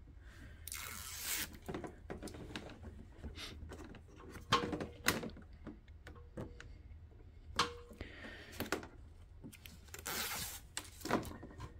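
Adhesive backing being peeled off an LED grille light strip, with two longer peeling sounds, about a second in and near the end. Between them come rustles and small clicks as the strip is handled and pressed into place.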